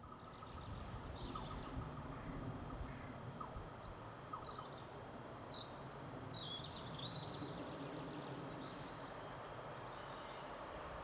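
Birds chirping in short scattered calls over a steady outdoor background noise. Near the end a distant approaching electric locomotive and container train grows faintly audible as a low hum.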